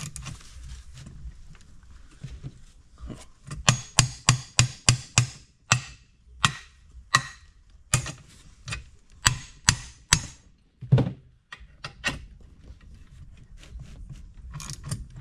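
Hammer taps on a Yamaha YZ250F's aluminium engine case while the case halves are being split. First comes a quick run of about eight sharp knocks, some three a second, from about three and a half seconds in, then slower single knocks until about twelve seconds in.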